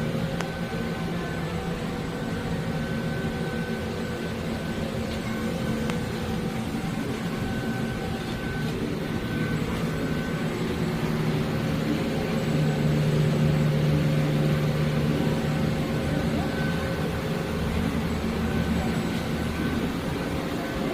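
Doosan Puma MX2600ST CNC multitasking lathe running: a steady machine hum with faint whining tones, and a lower hum that swells for a few seconds about twelve seconds in.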